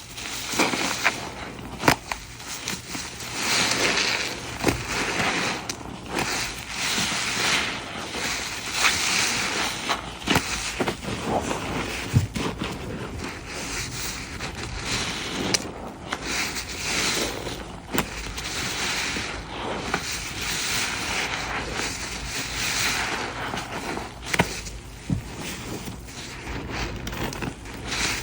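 A wet, soapy sponge squeezed again and again, each squeeze a hissing squish of foam and liquid lasting about a second, with occasional sharp clicks between squeezes.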